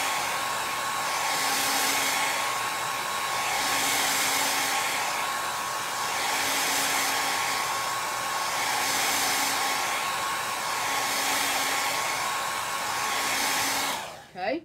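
Handheld electric dryer blowing steadily with a thin whine, drying wet chalk paste on a chalkboard sign. The sound swells and fades about every two and a half seconds as the dryer is swept back and forth, then switches off near the end.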